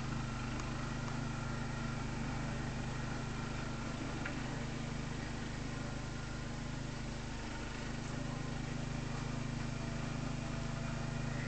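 Tractor engine running at a steady, even speed, heard muffled as a low hum with a hiss over it.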